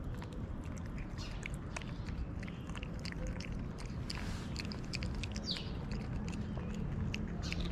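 Two cats chewing wet cat food chunks close up: many quick, wet clicking and smacking bites.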